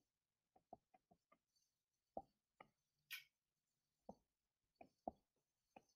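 Near silence, broken by about a dozen faint, very short ticks scattered unevenly, with a brief faint hiss about three seconds in.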